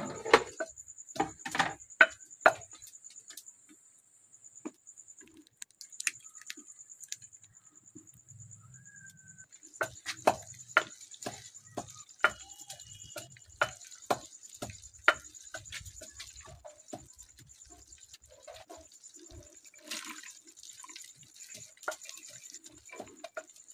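Irregular sharp knocks and clicks, some loud, over a steady high-pitched whine.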